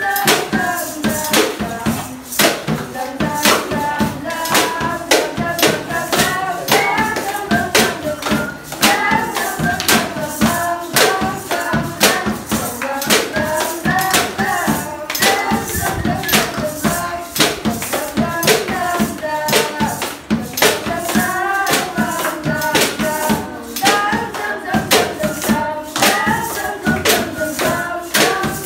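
A group of students singing together over improvised percussion: hand claps, a shaken plastic-bottle shaker and a plastic water jug played as a drum, keeping a steady beat.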